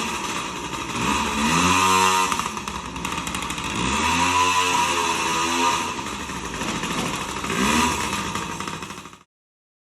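Yamaha PW50's small two-stroke single-cylinder engine running and being revved up and back down three times, then cutting off near the end. It runs again now that a new crankshaft seal has replaced the worn one.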